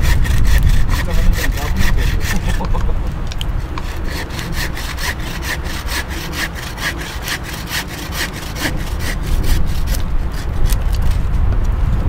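A hand saw cutting through wood in steady back-and-forth strokes, a few per second, pausing briefly about ten seconds in before starting again.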